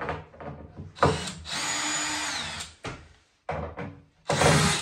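Power drill run in several short bursts: a brief burst, a steady run of about a second that winds down in pitch, two quick blips, then another run starting near the end, as when driving out screws while taking kitchen units apart.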